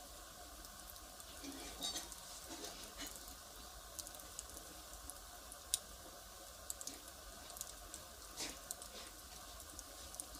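Firewood fire crackling: irregular sharp pops and snaps over a low hiss of burning.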